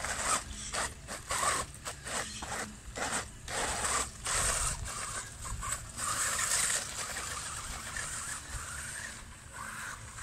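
Rough crunching and scraping over dirt and gravel: a quick run of short crunches, three or four a second, for the first few seconds, then a steadier rough scraping hiss.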